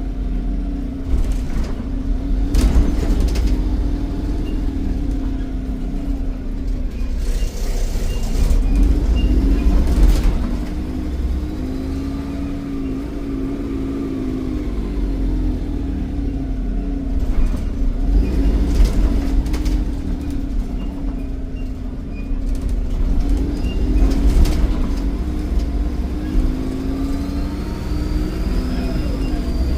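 Volvo D7E 7.1-litre diesel engine of a Wrightbus Eclipse bus (Volvo B7RLE) under way, its note rising and falling as the bus pulls away and changes speed, with scattered rattles. A faint high turbo whistle rises near the end.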